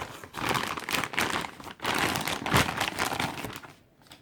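Packaging being handled and unwrapped, crinkling and rustling for about three and a half seconds, then dying down near the end.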